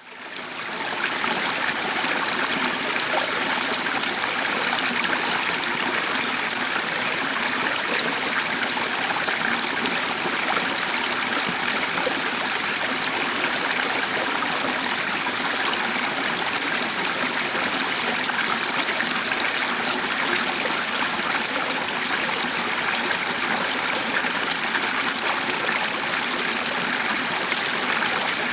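Stream of water flowing in a steady, even rush that fades in over the first second.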